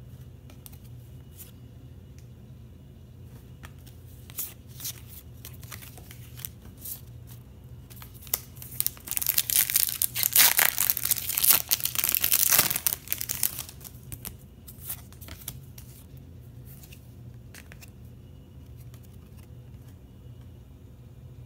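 A foil trading-card pack wrapper being torn open by hand, with a few seconds of loud crinkling and tearing about halfway through. Light clicks and rustles of cards being handled come before and after.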